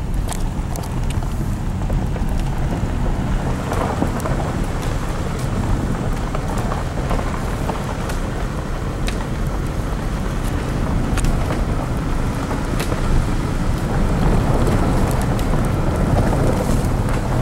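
Car driving on a gravel road, heard from inside the cabin: steady low road rumble from the tyres on gravel, with scattered sharp ticks throughout.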